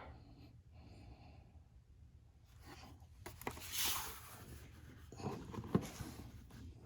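Handling noise: a few sharp clicks and a brief rustle over a low steady hum.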